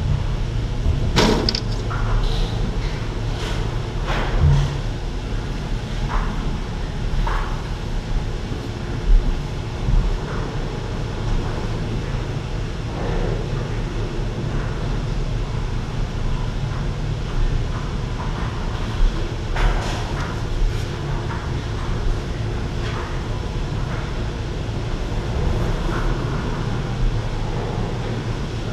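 Gondola lift station machinery: a steady low rumble, with scattered sharp clicks and clanks as the cabins move along the station track.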